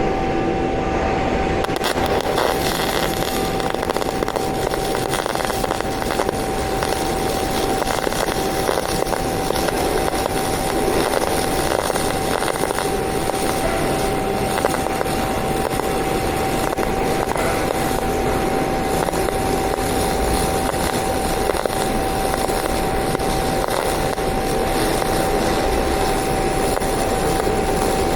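MIG (GMAW) welding arc running steadily while laying a fillet weld with solid wire: an even crackling sizzle with a steady tone running under it, struck right at the start and held without a break.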